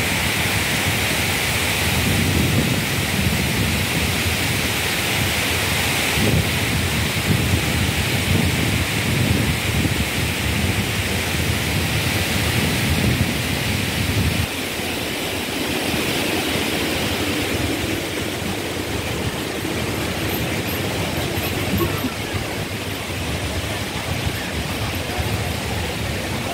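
Steady hiss of rain falling on wet paving, with irregular low rumbling through the first half that eases off about halfway through.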